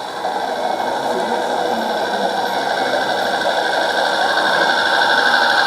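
Radio-controlled ScaleART Mercedes Actros 6x6 model truck, its electric motor and gearing whining steadily and growing a little louder toward the end.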